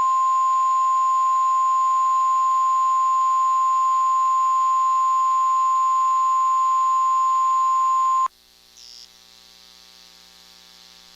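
NOAA Weather Radio warning alarm tone, a single steady 1050 Hz beep. It is held unbroken and cuts off abruptly about eight seconds in, leaving a faint hiss on the radio channel. The tone is the alert that switches on weather radios ahead of a warning message.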